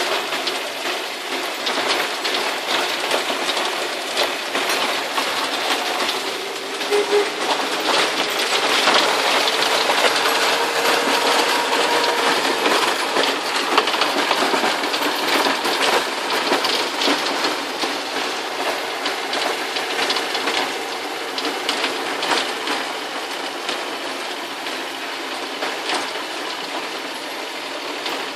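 Cab noise of a Land Rover on the move: a steady rush with continual rattling and clatter from the body and fittings.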